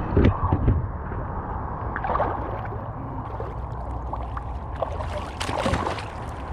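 Shallow water sloshing and splashing around waders as a large snapping turtle is wrestled by hand, with a few sharper splashes near the start and about five and a half seconds in. A steady low rumble of wind and handling sits on the microphone underneath.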